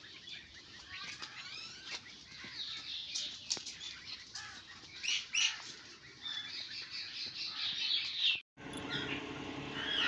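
Many small birds chirping and twittering in garden trees, short high calls overlapping. About eight and a half seconds in the birdsong cuts off, and a different steady sound with a low hum follows.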